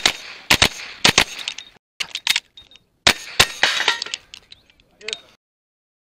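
Pistol-caliber carbine fired in a fast string of about eight shots, mostly in quick pairs, all within under four seconds. The shooting stops about three and a half seconds in.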